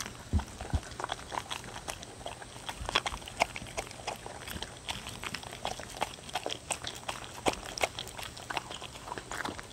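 Two dogs eating shredded chicken, egg and bell pepper from wooden bowls close to a microphone: irregular wet chewing, smacking and licking clicks, with an occasional knock of snout or tongue against the bowl.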